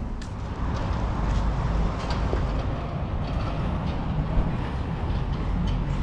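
Low, steady rumble of a heavy vehicle running, growing louder about a second in, with a few faint clicks over it.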